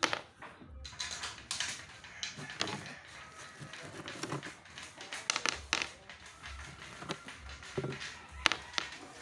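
Irregular clicks and light knocks of aluminium sliding-window profiles and parts being handled and fitted together during assembly.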